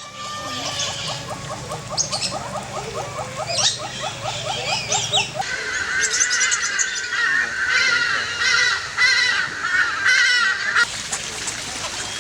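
Aviary birds calling. A rapid run of repeated calls at about five a second gives way, about five seconds in, to a dense chatter of many birds calling together.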